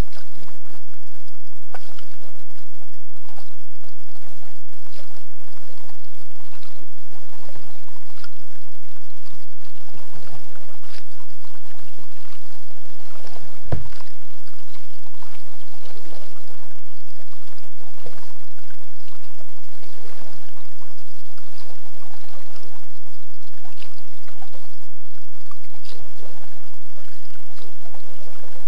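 Kayak paddle strokes in the water: irregular splashes and drips every second or two, with one sharper knock about halfway through.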